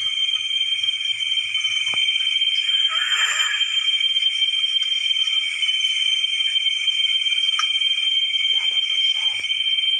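A steady, high-pitched chorus of night insects such as crickets, trilling without a break. About three seconds in there is a brief rustling noise, and a few faint clicks come later.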